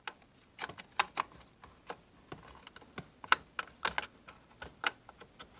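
Scattered light clicks and taps as a RAM stick is lined up in a desktop motherboard's memory slot, with the module's edge knocking against the slot and its plastic latches. The clicks come irregularly, a few each second.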